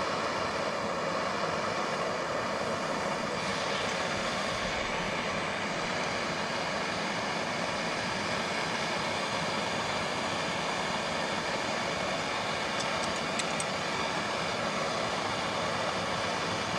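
Propane torch on a gas cylinder burning steadily with an even rushing hiss, heating a steel bar held in a clamp so that it can be bent.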